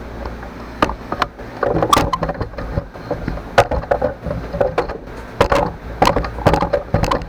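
Irregular clicks and knocks of small metal hardware being handled while nuts are fitted to bolts holding an ER32 chuck's back plate on a mini lathe.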